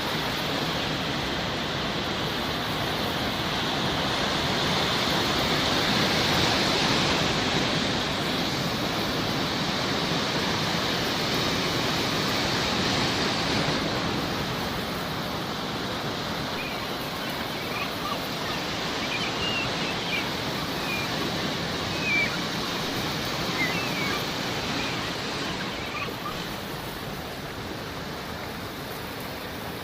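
Sea waves washing in steadily, swelling louder about six seconds in. From about the middle onward, a scattering of short, high seagull calls sounds over the surf.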